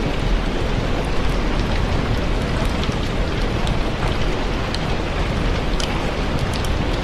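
Steady heavy rain with a deep low rumble, and scattered sharp crackles of a wood fire burning in a fireplace.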